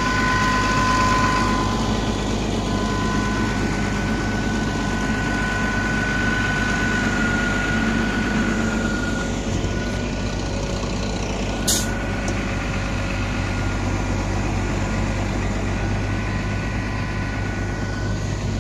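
Farm tractor's diesel engine running steadily, with a steady high whine over the rumble. A brief hiss about twelve seconds in.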